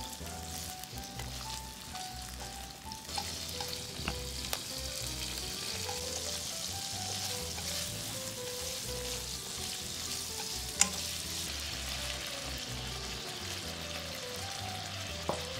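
Squid, garlic and chilli sizzling in olive oil in a frying pan. The sizzle swells about three seconds in, and a few sharp clicks come from wooden chopsticks stirring and tapping the pan.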